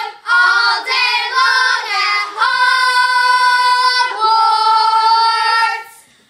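Girls singing in high voices: a run of short, shifting notes, then two long held notes, the second fading out shortly before the end.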